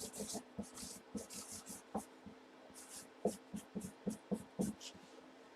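Irregular light clicks and rustles, a few a second, as things are handled on a desk, over a faint steady hum.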